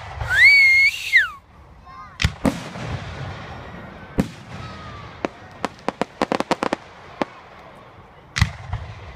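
Consumer fireworks going off: a loud high whistle rises, holds and falls near the start, then sharp bangs of shells bursting. A rapid string of crackling pops comes about five to seven seconds in, and another bang near the end.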